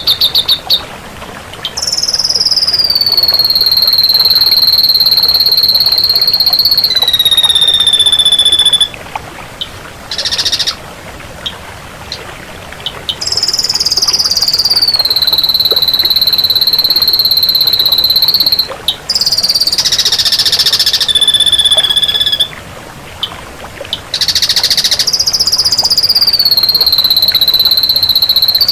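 Repeated long, high whistling calls: each starts higher, slides down and holds a steady tone for several seconds, then stops abruptly, with short gaps between.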